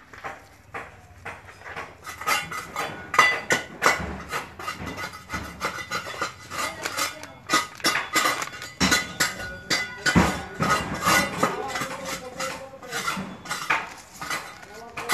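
Hand work on a concrete tomb surface: a busy, irregular run of scrapes and small metallic clinks and taps as the tomb is worked over for repainting.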